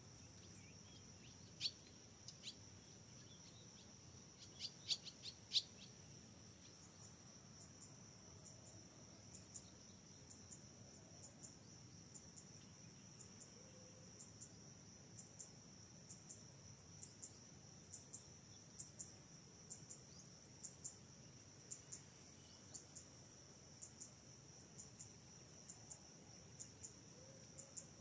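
Faint, steady high-pitched trilling of forest insects, with short high chirps about once a second. A few sharp clicks stand out near 2 seconds in and again around 5 seconds in.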